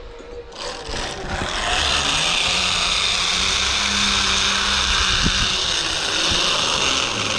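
Zipline trolley pulleys running along the steel cable: a steady whirring hiss with a low hum under it. It builds over the first couple of seconds and eases slightly near the end.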